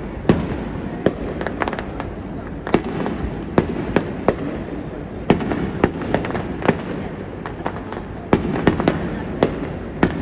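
Aerial fireworks bursting: a rapid, irregular series of sharp bangs, about two a second, over a steady background rumble.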